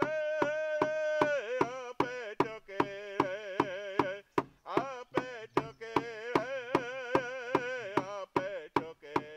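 Background music: a melody of long, wavering held notes over a steady drum beat of about three strokes a second.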